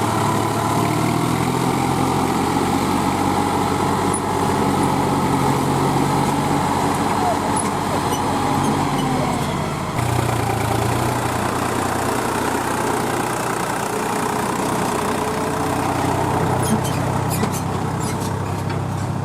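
Heavy diesel farm machinery, the tractor and harvester working together, running steadily at a constant engine speed. The low engine note shifts once about halfway through.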